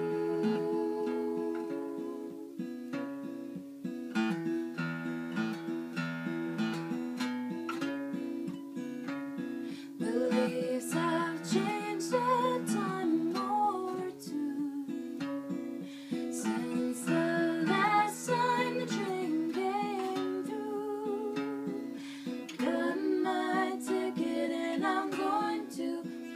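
Steel-string acoustic guitar played in chords, with a voice singing along from about ten seconds in.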